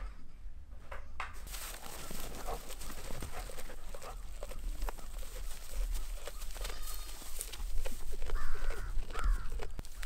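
Two short animal calls near the end, over a run of small clicks and a steady low rumble.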